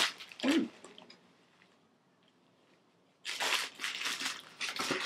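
Packaging crinkling and rustling as unboxed items are handled, starting about three seconds in after a short lull.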